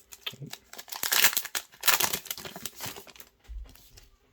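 Foil wrapper of a Pokémon booster pack crinkling as it is handled and torn open, loudest in bursts around one and two seconds in, then dying away.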